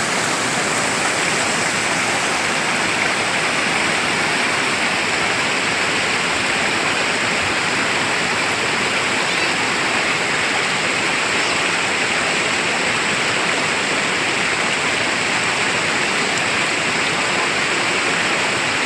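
Flowing river water rushing steadily, an even, unbroken hiss.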